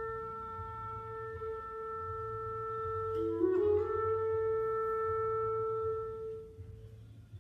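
Solo clarinet playing slow, sustained notes. A long held note gives way, about three and a half seconds in, to a brief lower note that slides up into a second long note, which fades out near the end.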